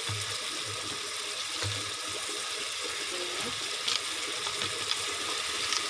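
Thick red chili sauce simmering and sizzling in a pot, a steady hiss, with a couple of faint clicks in the second half.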